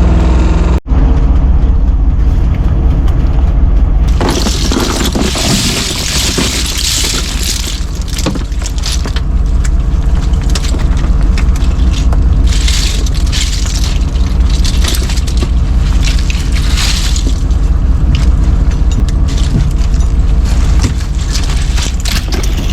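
Small fishing boat's engine running with a steady low rumble, wind buffeting the microphone, and irregular rushes of splashing and rattling; the sound drops out briefly about a second in.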